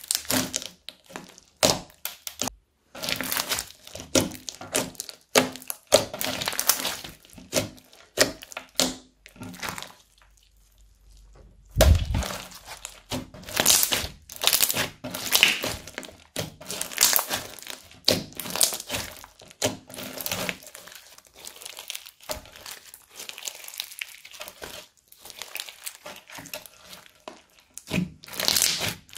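Crunchy bead-filled slime being kneaded and squeezed by hand, giving dense, irregular crackling and popping. It goes quiet for a moment about a third of the way in, then a dull thump.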